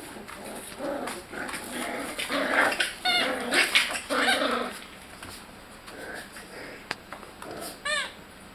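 Young puppies, about four weeks old, whimpering and yipping, busiest in the first half, with a short high wavering yelp near the end.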